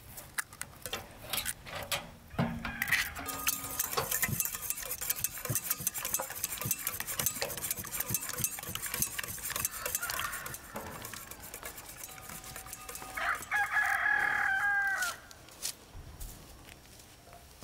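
A wire whisk beats eggs in an enamel bowl with a fast, continuous clatter of metal on enamel, after a few clinks as eggs are cracked on the rim. About thirteen seconds in, a rooster crows once, the loudest sound here, its call dropping in pitch at the end.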